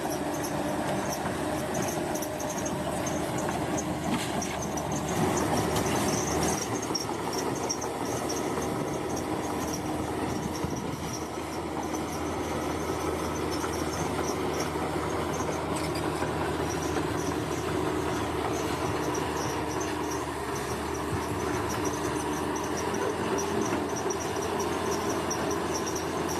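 Bulldozer's diesel engine running steadily under load, with insects chirping in a fast pulsing trill over it.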